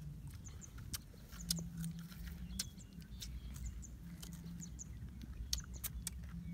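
Mango being chewed and crunched close to the mic, with irregular sharp crunches several times a second.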